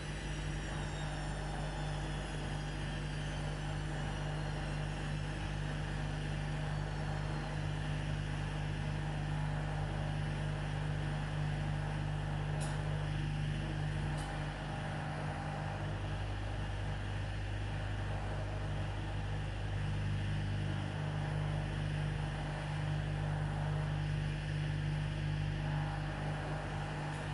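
Washing machine running with a steady low motor hum. A faint high whine falls slowly in pitch over the first several seconds.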